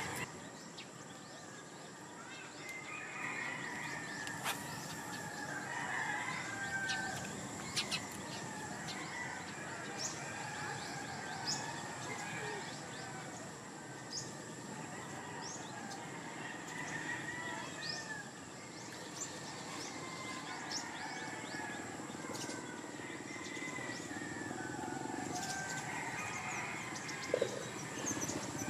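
Birds chirping and roosters crowing on and off, with many short high chirps scattered through.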